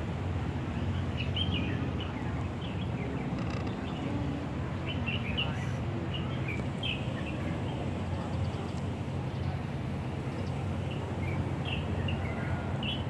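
Birds chirping, many short, high chirps scattered throughout, over a steady low rumble of background noise.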